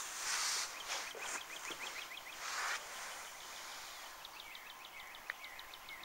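Small songbirds calling: two rapid trills of short high notes at about seven a second, with a few falling whistled notes near the end. Two brief bursts of rustling noise come in the first three seconds.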